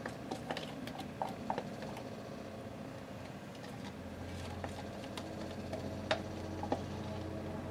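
Silicone spatula scraping and tapping against a plastic pouring container as thick soap batter is emptied into a loaf mold: scattered light clicks and ticks over a faint steady hum.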